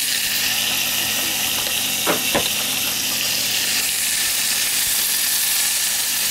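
Melted butter and jarred minced garlic sizzling in a small saucepan: a steady frying hiss, with two quick taps about two seconds in.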